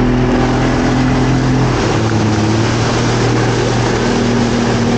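Mercury 90 SaltWater outboard motor running at cruising speed: a steady engine drone whose pitch dips slightly about two seconds in, over the rush of the wake and spray.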